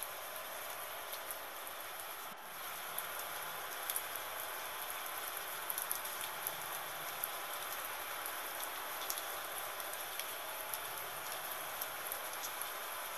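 Gentle rain falling steadily: an even hiss with scattered close drops ticking, dipping briefly about two seconds in.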